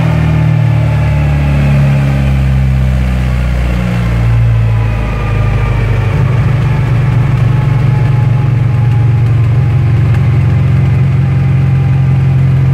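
Tuned Opel GT engine running down on a chassis dynamometer with no load: revs fall from about 2,500 rpm as the car coasts on the rollers. About six seconds in it settles into a steady idle.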